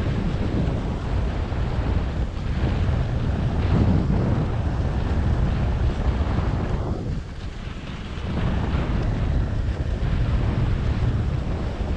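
Wind buffeting the action camera's microphone while skiing downhill at about 15–18 mph, mixed with skis hissing over groomed snow. It eases for about a second midway.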